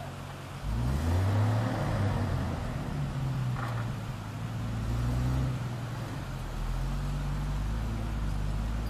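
Engine of a ZiL-157 six-wheel-drive truck loaded with logs, revving up about a second in and then pulling steadily under load as it fords a river, with the rushing water of the river around it.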